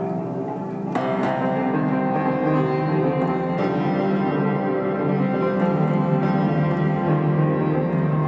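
Upright piano played live: held, ringing chords over a steady low note, with a fresh set of notes struck about a second in and lighter notes scattered after.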